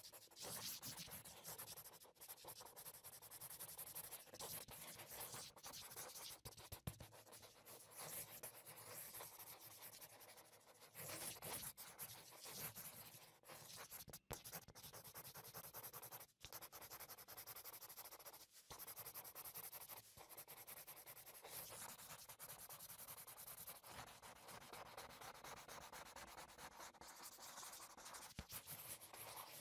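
Faint scratchy rubbing of a fine paintbrush stroking and dabbing glitter paint onto paper, in small uneven strokes.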